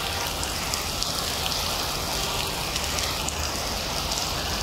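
Heavy rain pouring steadily, with scattered drops ticking on nearby surfaces.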